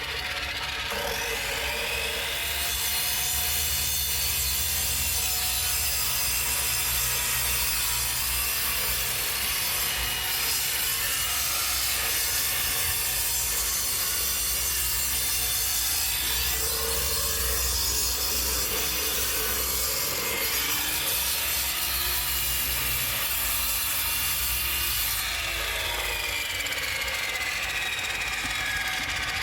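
Concrete saw running and cutting through a concrete block, its blade whine rising and falling in pitch as it bites. The gritty cutting noise is loudest from about two seconds in until near the end, when it eases off and the motor runs on.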